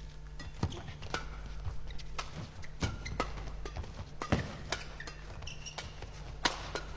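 Badminton rally: rackets striking the shuttlecock in quick succession, sharp cracks roughly every half second, including repeated downward smashes, over a low steady hum of the hall.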